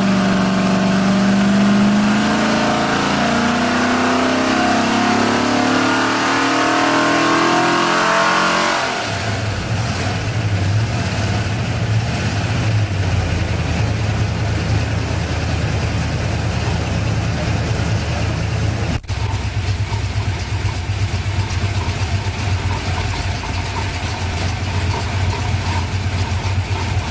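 Pontiac 462 V8 (a 421 bored and stroked) with Tri-Power triple carburettors running on an engine test stand: its revs climb steadily for about nine seconds, then it drops back to a steady idle.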